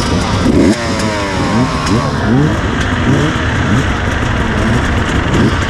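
Several enduro motorcycle engines revving and accelerating at once, overlapping, their pitch rising again and again as the riders open the throttle; one engine's pitch falls away about a second in.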